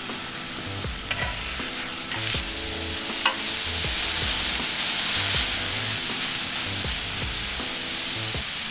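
Thin slices of marinated pork loin sizzling on a hot flat-top griddle. The meat is turned with metal tongs, with a couple of sharp clicks, and the sizzle grows louder from about two seconds in as the other side meets the hot surface.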